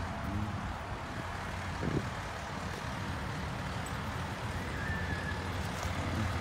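Fire engine pumper rolling slowly past with its diesel engine running, a steady low rumble.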